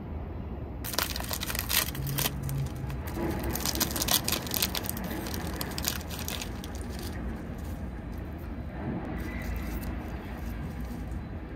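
Dense crackling and crinkling of a snack being handled close to the microphone, starting about a second in and dying away after about seven seconds, over a steady low hum.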